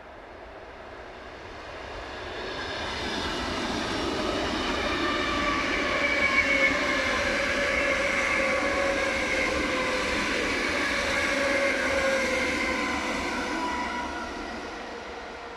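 ED4M suburban electric multiple unit passing along the line: a rumble of wheels on rails with a whine that sinks slightly in pitch. It builds over the first few seconds, is loudest in the middle, and fades near the end as the train moves off.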